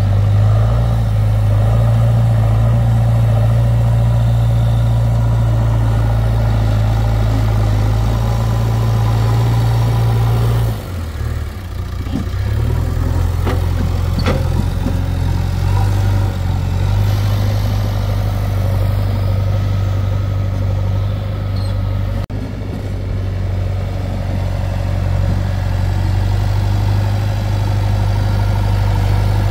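Diesel engine of heavy farm or earth-moving machinery idling steadily. Its note dips and shifts for a few seconds around the middle, then settles back to the same steady idle.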